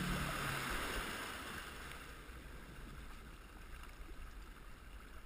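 Jet ski engine dropping off as it slows, its steady note fading out within the first second, leaving a faint low rumble and the hiss of water from the wake.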